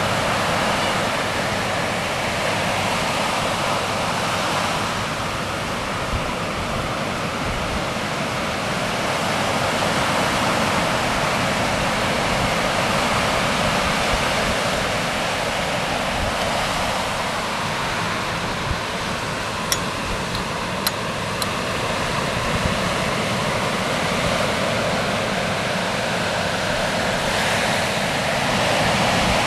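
Steady rush of breaking ocean surf, with a few brief faint ticks about two-thirds of the way through.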